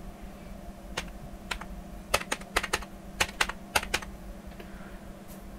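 Computer keyboard keys clicking in an uneven run of about a dozen separate strokes, from about a second in to about four seconds in, as a ten-digit phone number is typed.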